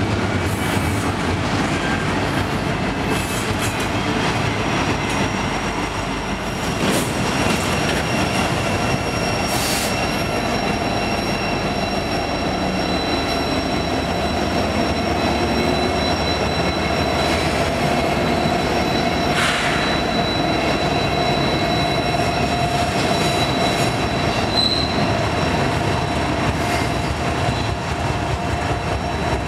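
Freight train rolling past with a steady rumble of wheels on rail and long, high wheel squeals: several steady squealing tones set in after a few seconds and hold. Union Pacific and Kansas City Southern diesel locomotives pass close by during it.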